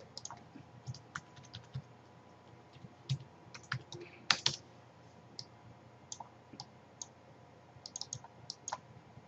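Irregular clicks and taps of a computer keyboard and mouse, single keystrokes with a few quick clusters about four seconds in and near the end.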